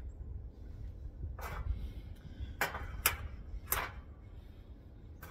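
A few short metallic clicks and scrapes as the screw cap is twisted off a small metal alcohol burner and set down on the table, over a low wind rumble on the microphone.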